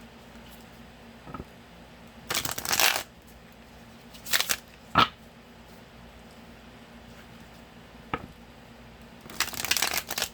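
Tarot cards being shuffled by hand in three short bursts of card-on-card rustling, with a few single sharp taps of the deck in between.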